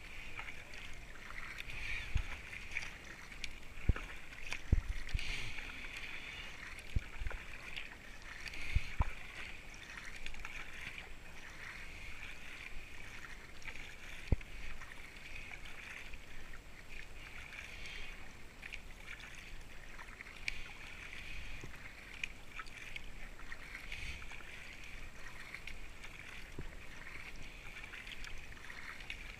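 Kayak paddled steadily down a river: paddle strokes and water rushing along the hull as a steady splashing hiss. A few dull knocks come through, most of them in the first ten seconds.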